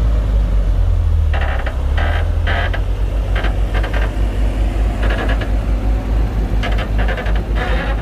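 Komatsu D58P bulldozer's diesel engine running with a steady low rumble. Short bursts of clatter come in clusters over it, about a second and a half in and again through the second half.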